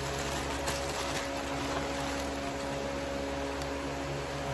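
Steady mechanical hum with a low drone and several fixed tones, with a few faint crinkles of clear plastic shipping bags being handled about a second in.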